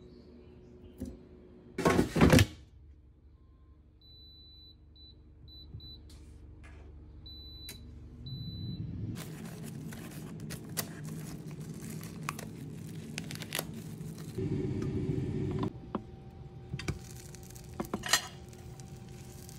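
Kitchen prep sounds: a sharp knock and rustle, a few faint short high beeps, then plastic packaging crinkling and tearing as a knife cuts open a pack of frozen hash browns. Near the end comes a soft hiss of butter frying in a pan.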